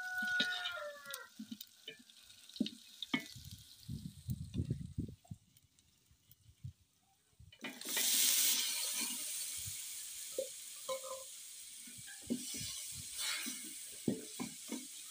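Wooden spoon scraping and knocking against a metal cooking pot as beef and potatoes are stirred in hot oil. About eight seconds in, a loud sizzle starts as a bowl of ingredients is poured into the hot pot, then settles into steady frying with more stirring.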